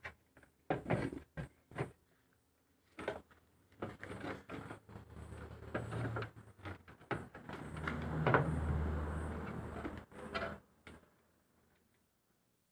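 Hand-work noises on a washing machine: a series of sharp knocks and clicks, with a few seconds of continuous rubbing and rumbling noise in the middle, as parts are handled and tidied up.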